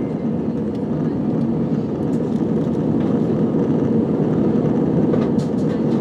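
Steady rumble of a jet airliner's cabin in cruise flight: engine and airflow noise heard through the fuselage, growing slightly louder, with a few faint clicks near the end.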